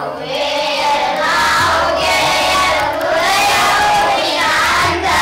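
A class of schoolchildren singing lines of a Kannada poem together in chorus, in short phrases, many voices at once.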